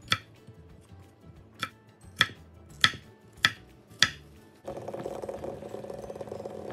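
Chef's knife chopping carrot and bell pepper on an end-grain wooden cutting board: six sharp knocks, the later ones about 0.6 s apart. About four and a half seconds in, the sound changes to water at a rolling boil in a stainless-steel pot with eggs in it, a steady bubbling.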